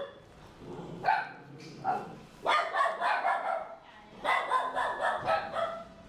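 Small house dogs barking repeatedly in short bursts and runs of barks.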